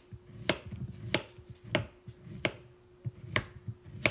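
Kitchen knife slicing through a zucchini and knocking on the cutting board: about six evenly paced cuts, a little more than one a second.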